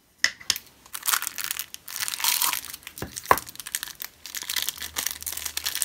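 Thin clear plastic film crinkling as it is peeled off fluffy slime in its tub: a run of irregular crackles, with one sharper click a little past the middle.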